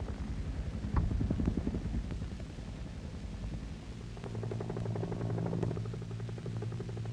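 Helicopter running: rapid, even rotor beat with a steady engine drone that strengthens from about four seconds in.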